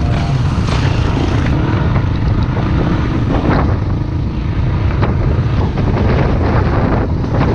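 Dirt bike engine running steadily while riding a dirt trail, with wind buffeting the camera microphone.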